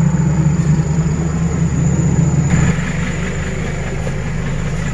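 Diesel dump truck engine running steadily at low revs, a loud, even low-pitched drone.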